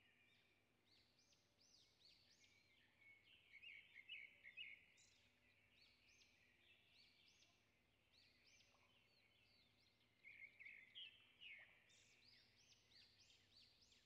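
Gulls calling over and over in high squeals that rise and fall in pitch, loudest in two bunches about four and eleven seconds in.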